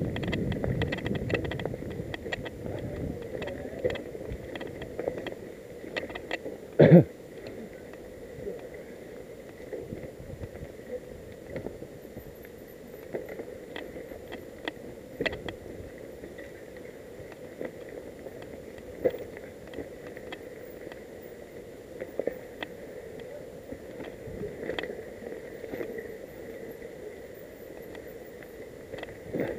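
Mountain bike rolling over a rough trail covered in dry leaves, with a steady stream of rattles and clicks from the bike and camera mount over the bumps, and one sharp knock about seven seconds in, the loudest sound.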